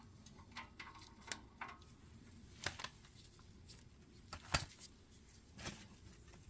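Scattered light clicks and knocks of tools and parts being handled, with one sharper knock about four and a half seconds in.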